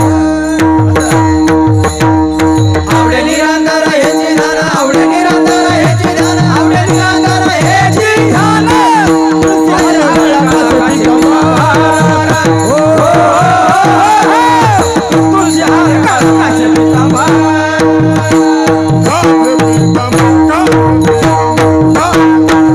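Kirtan music: a male voice singing devotional melody with long gliding runs, over a steady held drone and a regular hand-drum rhythm with jingling percussion.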